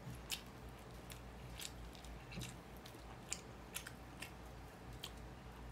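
Close-up eating sounds: a scatter of short, sharp, crisp clicks and crackles as fingers pick apart a cooked tilapia and pull out its bones, along with chewing.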